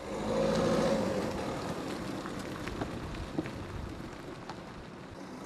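A car driving past close by and away, its tyre and engine noise loudest about a second in and then fading.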